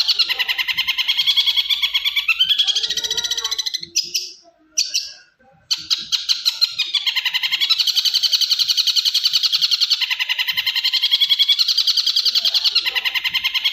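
Long-tailed shrike (cendet) singing a fast, continuous chattering song of rapidly repeated high notes. The song breaks off about four seconds in and resumes a couple of seconds later.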